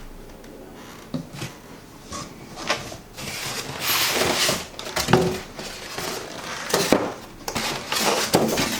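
Unboxing packaging being handled: a few soft clicks, then a second or so of rustling packaging about three seconds in, followed by several sharp knocks and clunks as items are lifted out and set down.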